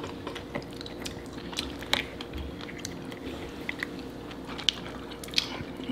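Close-up eating sounds: chewing and wet mouth noises with scattered sharp clicks and small cracks as crab leg shells are pulled apart by hand.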